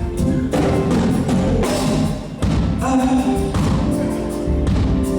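Live gospel band music with a steady drum beat, opening a song before the vocals come in.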